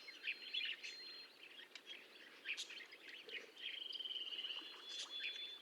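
Faint budgerigar chatter: many short high chirps, with a longer trilled note from about three and a half to five seconds in.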